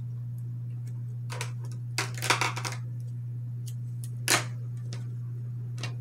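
A few short rustles and clicks from hands working a crochet hook through yarn, with a cluster of them about two seconds in, over a steady low hum.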